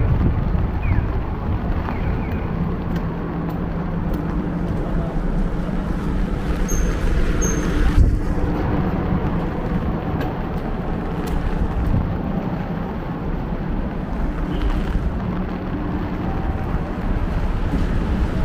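Steady street noise of vehicle traffic running, with wind buffeting the microphone.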